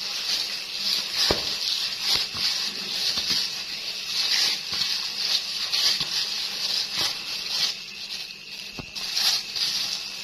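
Hands stirring and kneading a carp bait mix in a container: a repeated swishing, squelching rustle roughly every half second to a second, with a few sharp clicks.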